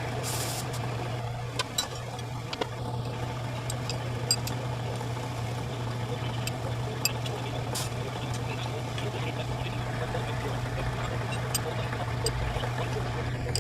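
A workshop machine running with a steady low hum, with scattered light clicks and ticks.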